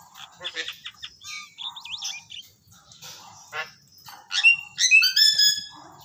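Caged Javan mynas calling: scattered chirps and chattering notes, then a run of loud, clear whistled calls about four seconds in.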